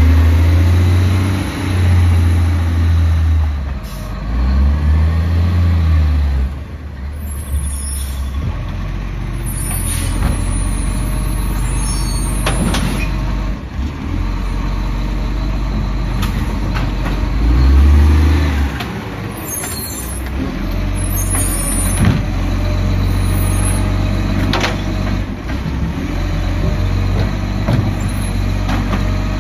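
Side-loader garbage truck's diesel engine running, revving up in several bursts to drive the hydraulic pickup arm as bins are lifted and emptied, with a few sharp clanks.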